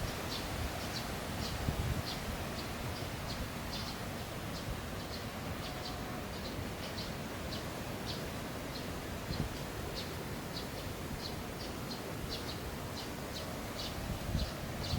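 A small bird chirping over and over, short high chirps about two or three a second, over a low wind rumble on the microphone.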